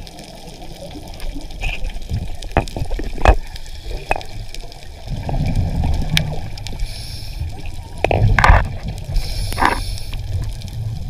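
Underwater audio of water gurgling and rushing, with bubbling and several sharp knocks. The low rumble grows heavier about halfway through.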